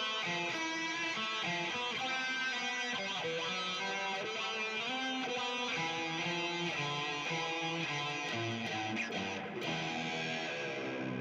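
Electric guitar played through a distorted multi-effects patch with an EVH 5150 cabinet simulation, a run of changing notes and chords, ending on a long held low note.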